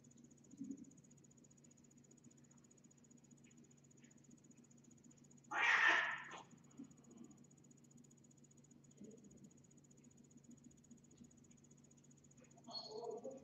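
Steady faint electrical hum with a thin high whine, broken about six seconds in by a loud burst of noise lasting under a second, and by a weaker burst near the end.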